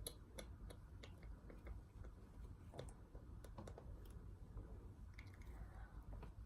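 Faint, irregular light clicks and rustles of hands handling packaging.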